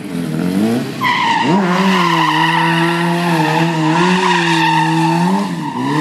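Sportbike engine revved high and held while the rear tyre squeals, starting about a second in, as the bike slides round in a tight drift circle; the revs dip briefly near the start and again near the end.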